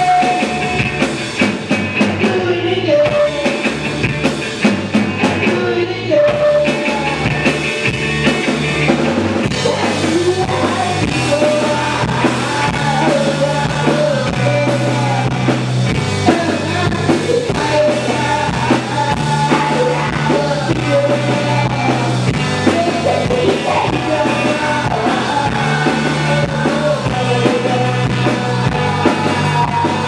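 Rock band playing live: electric guitar, bass guitar and drums, with a male voice singing the lead.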